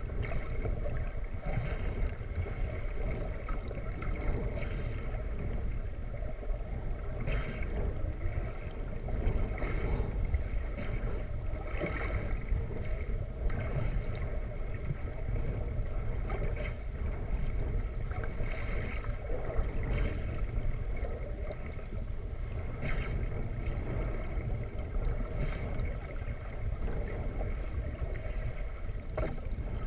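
Underwater ambience picked up by a camera submerged in open sea: a steady low, muffled rumble of water against the housing, with faint crackles every second or two.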